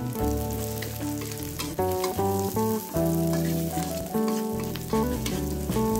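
Sliced chilies, shallots and garlic sizzling steadily in hot oil as they are stir-fried, with small clicks of stirring. Instrumental background music with changing notes plays over it.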